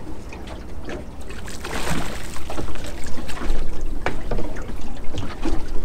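Water slapping and splashing against the side of a small boat, with irregular sharp knocks and a steady low rumble of wind on the microphone. The splashing gets louder and choppier from about three seconds in.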